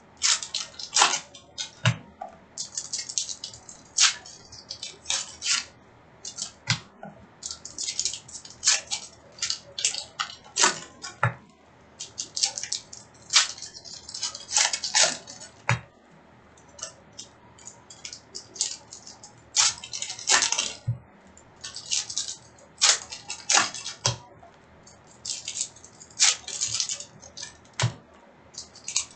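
Trading cards and their packaging being handled: irregular rustles, snaps and sharp clicks, several every second.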